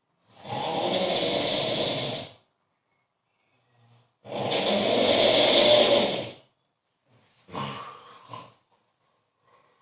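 A man snoring very loudly: two long snores of about two seconds each, a couple of seconds apart, then a shorter, weaker snore in two pulses near the end.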